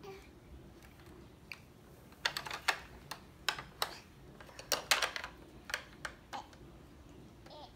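Irregular run of sharp plastic clicks and clacks as a baby's hands work the buttons and pieces on a plastic activity walker's play panel, starting about two seconds in and dying away near the end.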